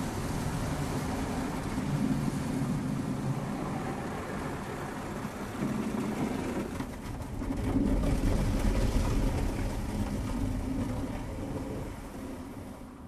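Automatic car wash running: a steady rumble of machinery with a hiss of spraying water, growing louder about eight seconds in and then fading out near the end.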